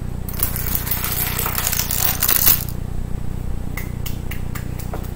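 A long chain of about 45 plastic LEGO minifigures toppling one after another like dominoes on a wooden tabletop. It makes a rapid clatter of small plastic pieces that lasts about two and a half seconds, then hands clap a few times near the end.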